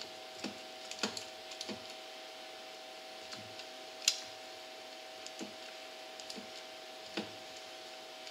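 Irregular metal clicks and taps of a socket wrench on a universal joint working the exhaust-extension bolts on the ATV's cylinder head, the loudest about four seconds in, over a steady hum.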